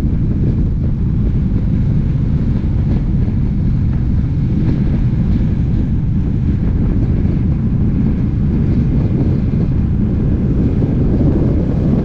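Honda Rebel 1100's parallel-twin engine running steadily at cruising speed, mixed with wind rushing over the microphone.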